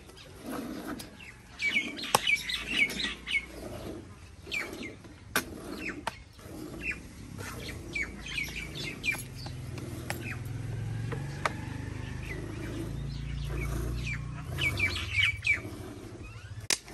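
Small birds chirping in quick bursts, loudest about two seconds in and again near the end, over the rhythmic squirts of milk from a cow being milked by hand into a steel bucket.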